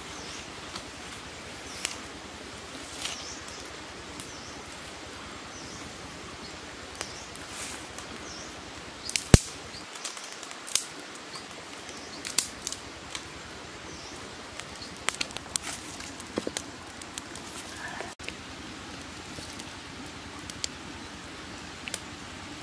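Small wood fire being tended: scattered crackles and snaps of burning twigs and sticks being broken and pushed in, the sharpest snap about nine seconds in. Small birds chirp faintly.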